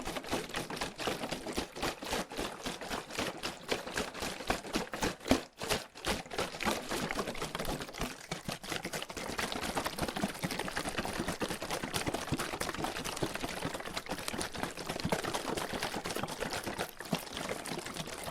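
Water sloshing inside a plastic water bottle being shaken fast, a quick run of swishes and crinkly plastic clicks. About five seconds in the shaking pauses briefly after one louder knock, then resumes as a denser, more even swishing.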